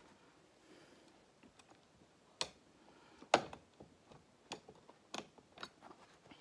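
Scattered sharp clicks and knocks of the office chair's backrest bracket and bolts being worked into line with the seat's screw holes, with one louder knock about halfway through.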